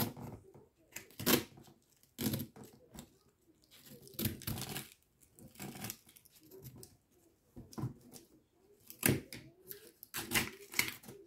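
Craft knife blade cutting along the inside hinge of a hardback book, slicing through paper and glue to free the text block from the cover, in a series of short, irregular strokes.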